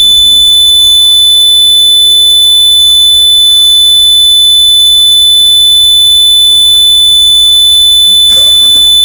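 A loud, steady, high-pitched electronic alarm tone, held without a break. A short noisy burst comes near the end.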